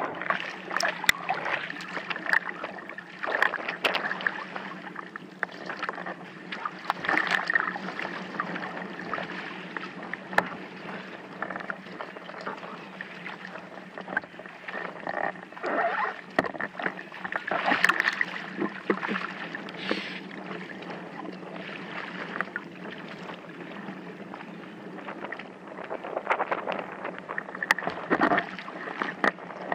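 Sea water splashing and lapping close against a windsurf board, in irregular bursts over a steady low hum.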